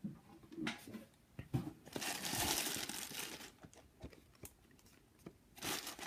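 A thin clear plastic bag crinkling as a card-game box is pulled out of it. There are a few small ticks and rustles, a longer stretch of crinkling about two to three seconds in, and another short crinkle near the end.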